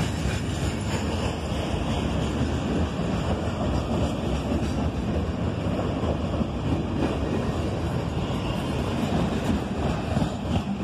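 Freight train passing, a steady rumble with no breaks or distinct impacts.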